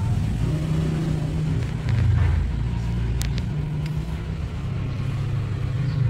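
A steady low rumble of a running engine, with a few brief sharp clicks about three seconds in.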